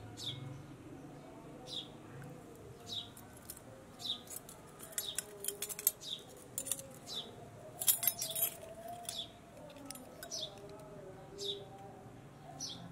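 A metal spoon clinking and scraping against a small ceramic bowl while taking out salt, in two bursts of quick clinks, loudest about eight seconds in. A bird gives short, falling chirps about once a second throughout.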